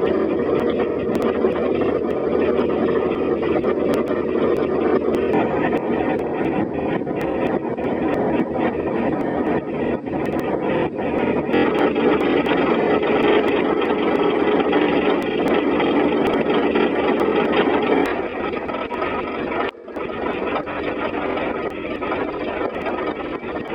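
A train running with a loud, steady rumble, recorded through a feature phone's small microphone. About 18 s in, the sound drops and thins out.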